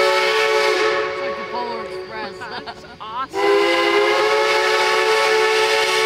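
Steam locomotive's whistle blowing a long chord of several steady tones. It fades away about a second in and sounds loud again from a little after three seconds in.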